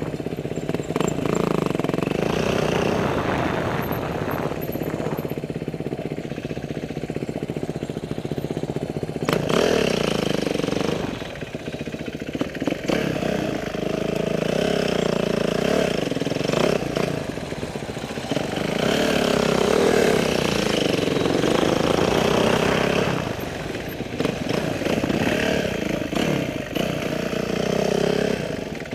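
Motorcycle engine running under load, its revs rising and falling over and over as the throttle is opened and closed, loudest in two long pulls about a third of the way in and again past the middle.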